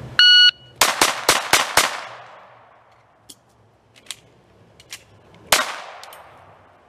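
A shot timer's start beep, then a Glock 44 .22 LR pistol firing five quick shots within about a second. After a pause with a few faint clicks, a sixth shot comes about five seconds after the beep.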